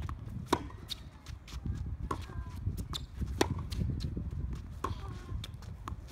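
Tennis ball struck by racket strings and bouncing on a hard court in a baseline rally: a string of sharp pops and knocks, the loudest hits about half a second in, about three and a half seconds in, and at the very end. A steady low rumble runs underneath.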